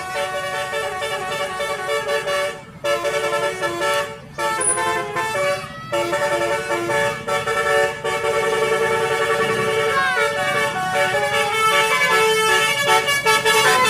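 An Indonesian bus's basuri (telolet) musical horn playing a tune in stepped notes. Short breaks fall between phrases, and a few notes slide in pitch about two-thirds of the way through.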